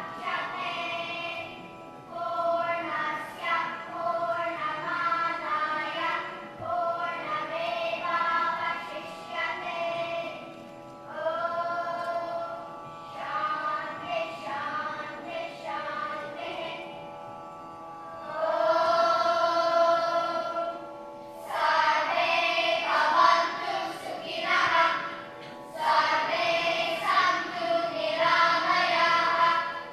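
Children's choir singing a Sanskrit verse in unison, in short phrases with held notes and brief breaths between them.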